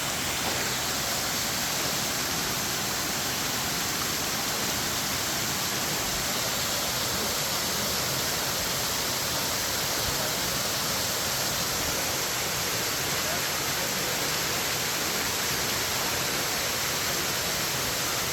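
Waterfall rushing close by: a steady, unbroken roar of falling water.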